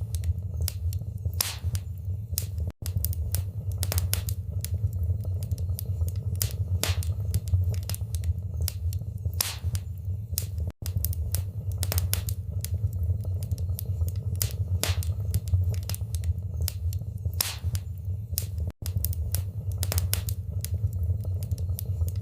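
Fireplace wood fire crackling, with frequent sharp pops and snaps over a steady low rumble. The sound cuts out for an instant three times, about eight seconds apart.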